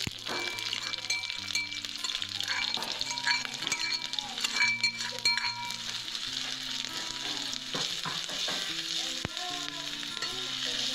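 Sliced onions and ginger-garlic paste sizzling in hot oil in a metal kadai, with a metal ladle stirring and scraping against the pan, the scraping loudest around the middle.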